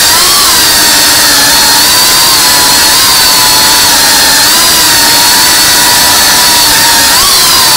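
Tiny whoop FPV quadcopter's motors and propellers whining loudly, heard close up from on board, the pitch wavering with throttle and shifting sharply near the end.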